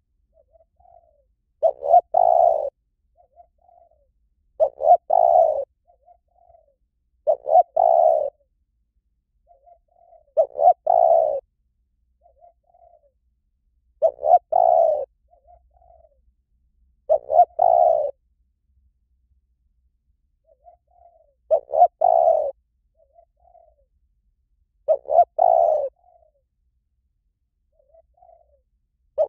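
Spotted dove cooing: a repeated song phrase of a few soft short notes and then a loud, low coo, given eight times about three seconds apart, with another beginning at the end.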